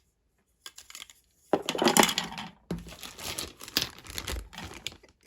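Plastic packaging crinkling and rustling as it is handled and opened, after a few small clicks.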